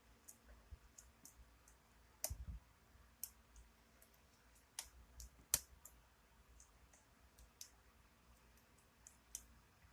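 Faint, irregular clicks of a lock pick and tension wrench working the pins of a pin-tumbler challenge lock, with a soft thump about two seconds in.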